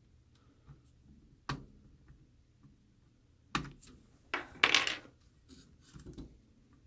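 Sharp plastic clicks and taps from a plastic spudger working at a laptop's motherboard connector, with a brief, louder scraping noise about four and a half seconds in.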